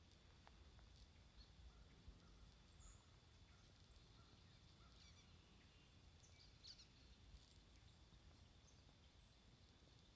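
Near silence: faint woodland ambience with a low rumble and a few faint, brief high chirps from distant birds.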